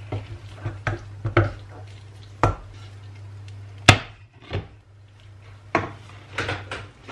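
Wooden spoon knocking and scraping against a stainless steel pot and a skillet while sauce is spooned onto pasta: a dozen irregular knocks, the sharpest clack about four seconds in. A steady low hum runs underneath.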